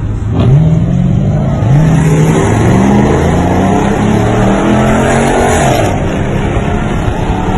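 Car engine accelerating hard through the gears, its pitch climbing and dropping back at each shift, several times over; about five or six seconds in the pitch falls away.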